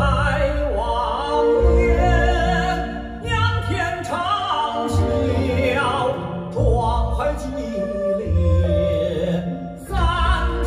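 Recorded music played loudly through a hi-fi system with stacked REL subwoofers, picked up in the listening room. A voice sings with a wide vibrato over instrumental accompaniment and deep bass that swells and fades every second or two.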